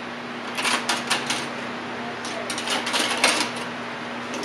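Metal kitchen utensils clattering in an open drawer as someone rummages through them, in two bunches of quick clicks a couple of seconds apart.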